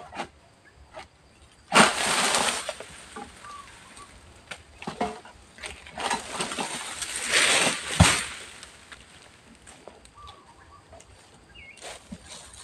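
Oil palm fronds rustling and crashing down during harvesting: a sudden rush of leaves about two seconds in, then a longer swishing fall that ends in a heavy thud on the ground about eight seconds in.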